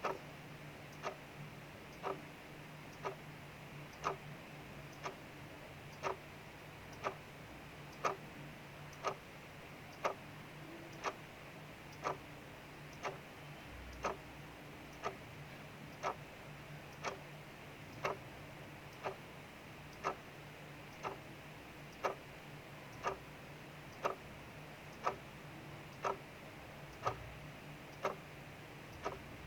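Clock ticking steadily, about one tick a second, over a soft steady hiss of rain falling outside.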